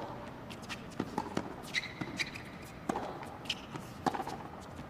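Tennis rally on a hard court: rackets striking the ball and the ball bouncing, a sharp pop every half second or so. Short sneaker squeaks on the court surface come about two seconds in and again past three seconds.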